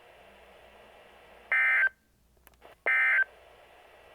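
Weather radio sending the Emergency Alert System end-of-message data bursts, the digital code that closes a warning broadcast. Two short, loud, identical buzzing bursts come just over a second apart, over faint hiss with a couple of faint clicks between them.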